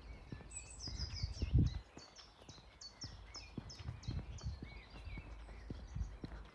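A small songbird sings a fast run of about a dozen high, downslurred notes lasting about three seconds, with fainter calls after it. Low, irregular thuds of footsteps on the path run underneath, the heaviest about a second and a half in.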